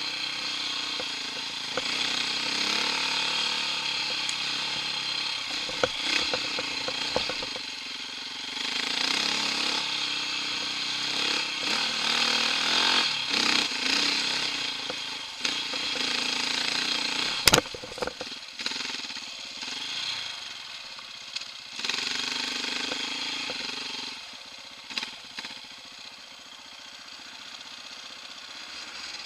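Off-road motorcycle engine on a forest trail, revving up and easing off with the throttle, with a single sharp knock a little past halfway. It settles to a lower, steadier run for the last few seconds.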